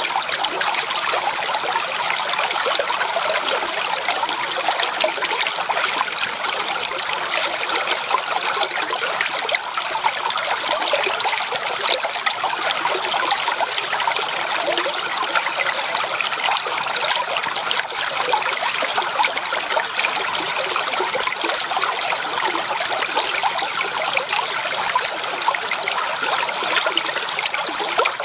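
Water flowing and trickling steadily over stones in a shallow stream, a constant babble of small splashes and gurgles.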